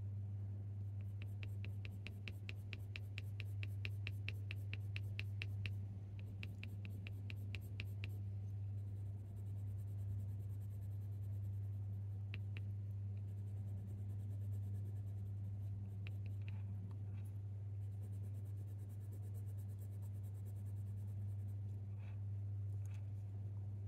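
Faber-Castell Polychromos coloured pencil scratching across smooth hot-press watercolour paper in short flicking strokes. A quick, even run of about five strokes a second comes in the first several seconds, then the strokes grow sparser, all over a steady low hum.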